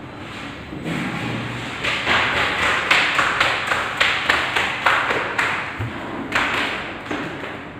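A quick series of taps and knocks, about two a second, as a phone's LCD and touchscreen assembly is handled and pressed on a table.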